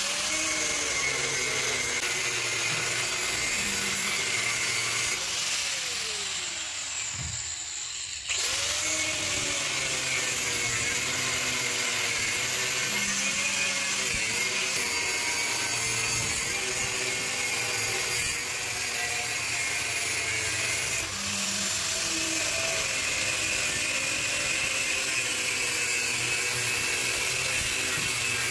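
Angle grinder with a thin cutting disc cutting through the steel shell of an air-conditioner compressor, a steady loud grinding whine whose pitch wavers as the disc bites. Around five to eight seconds in the pitch falls away, then jumps back up to full speed.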